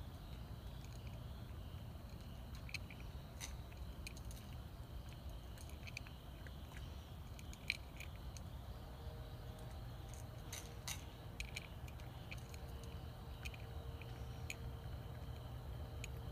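Orange tabby cat eating from a dish: soft, irregular lip-smacking and chewing clicks over a low steady rumble. A faint steady hum comes in about halfway.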